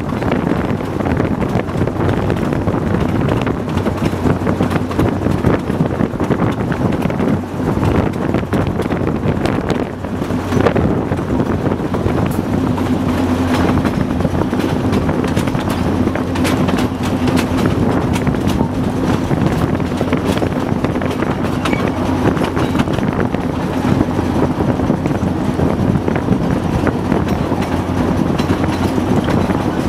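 TU4 narrow-gauge diesel locomotive running along the track, heard from the cab: a steady diesel drone with wheels knocking over the rails. A steady higher hum joins about twelve seconds in.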